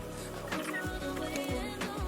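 Background music with a steady beat and sustained synth tones.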